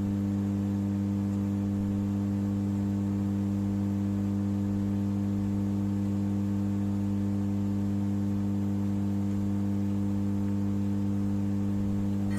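Steady electrical hum made of several fixed low tones, unchanging throughout.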